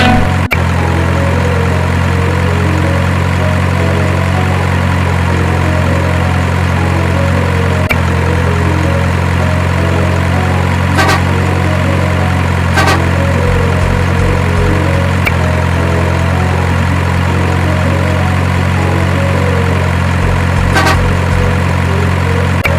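Steady low drone of a heavy truck engine idling. It breaks off for an instant about every seven to eight seconds, like a repeating loop.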